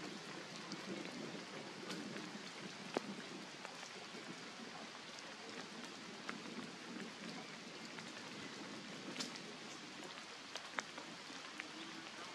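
Light rain falling on leaves and forest floor: an even hiss with scattered sharp drip ticks, the loudest tick about three seconds in.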